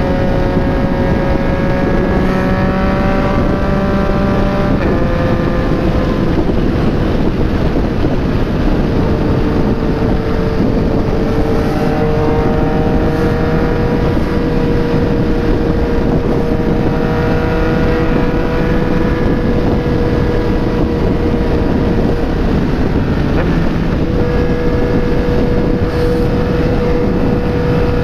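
Yamaha MT-09 three-cylinder engine running at steady high revs through a replica Akrapovic exhaust, with heavy wind rush on the microphone at highway speed. The engine note drops a step about five seconds in, then holds steady.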